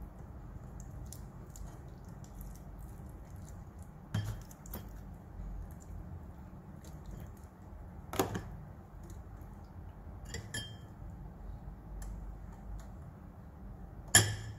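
Raw chicken pieces being handled and packed into a perforated metal steamer basket: faint wet handling noises and four sharp clinks and knocks of the metal basket and dishware. The loudest clink comes near the end.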